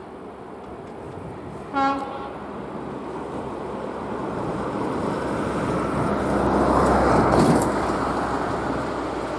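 Approaching diesel freight locomotive: a single short horn toot about two seconds in, then the rumble of the train growing louder as it nears.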